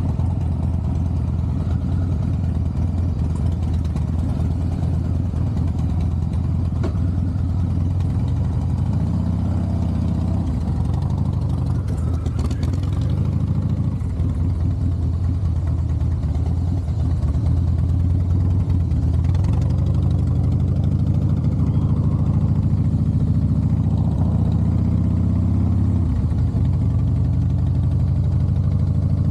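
Harley-Davidson Softail Heritage Classic's V-twin engine and exhaust running while ridden, its pitch rising and falling with throttle changes. A little louder from about halfway on.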